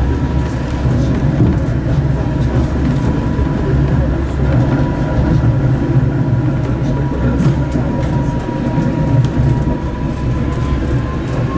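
Tram running along city track, heard from inside the car: a steady rumble of wheels on rail with a steady whine that rises slightly near the end.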